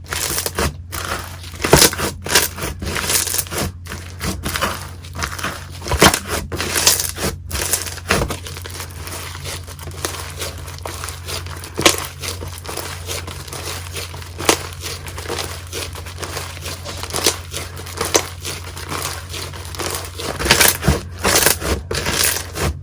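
Slime being squished and kneaded by hand, with irregular sticky clicks and pops, dense for the first several seconds and again near the end, sparser in between.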